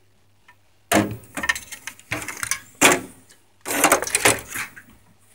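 Handling noise: four bursts of rustling, scraping clatter over about four seconds, over a faint steady low hum.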